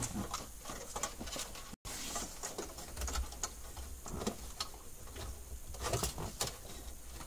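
Scattered light clicks, ticks and rustles of wires and plastic connectors being handled in a truck's dashboard wiring, with a few sharper clicks past the middle.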